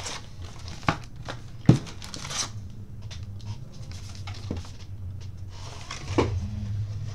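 Wrapped baseball card packs handled and set down in stacks on a table: a few soft knocks and crinkles, the sharpest about a second and a half in, over a steady low hum.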